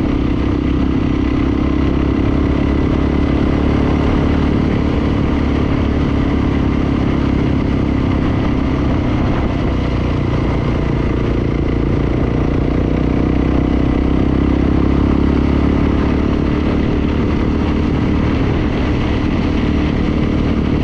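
Dirt bike engine running at a steady cruising pace while the bike is ridden, with no marked revving or gear changes.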